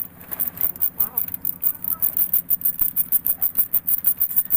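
Ratchet wrench clicking in a fast, even run as it turns a spark plug out of the cylinder head.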